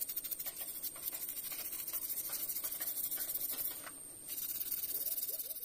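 Toothbrush bristles scrubbing foamy scale-remover cleaner on a motorcycle engine's crankcase: quick, rhythmic wet scratching strokes, with a brief pause about four seconds in.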